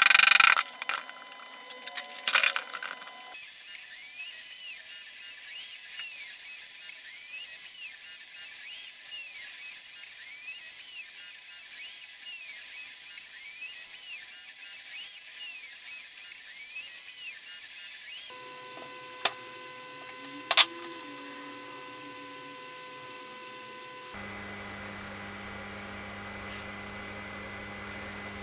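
A wooden mallet strikes a few times, knocking a wood inlay into its glued pocket. Then a Makita router on a CNC machine runs with a steady high whine for about fifteen seconds, cutting the inlay recess into the end-grain board, and stops suddenly. A low hum with a couple of clicks follows.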